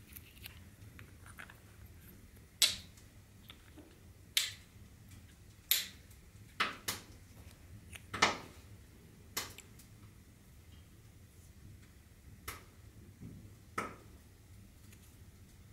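Small metal flashlight parts being handled: about eight sharp clicks and taps at uneven intervals as the tail cap, body tube and 18650 battery of a Sofirn SP40 are knocked and fitted together in the hands.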